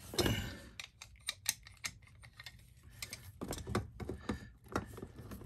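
Irregular light clicks and taps of channel-lock pliers being set on a hose fitting and gripping it to snug it.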